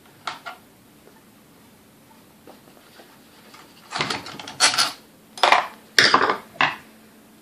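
Metal hand tools clinking and clattering on a workbench as screwdrivers and pliers are moved and handled: a faint click at the start, then a run of sharp clinks from about four seconds in.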